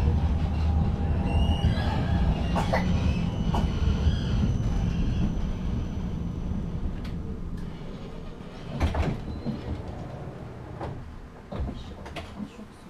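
Tram heard from inside the passenger car: a low running rumble of wheels and drive that fades away as the tram slows to a stop, with a few sharp knocks and clicks in the second half.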